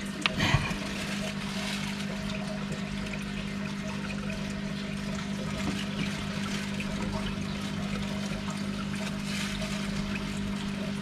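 Aquarium water trickling and bubbling steadily from the tank's filter and aeration, over a constant low pump hum. Just after the start, a few short splashes as a hand and plastic bag move in the water.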